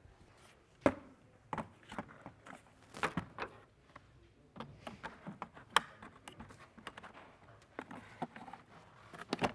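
Plastic engine-bay cowl panel being handled and fitted into place, giving irregular sharp clicks and knocks of plastic against the car body, the loudest about a second in and near six seconds.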